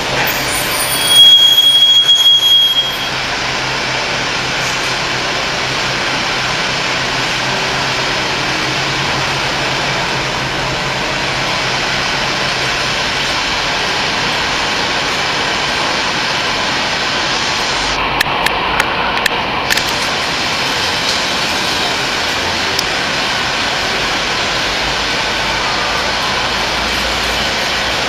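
Commercial kettle popcorn machine running as the kettle heats before the corn pops: a steady hiss and hum. A louder burst with a brief high whistle comes about a second in, and a few sharp clicks about eighteen seconds in.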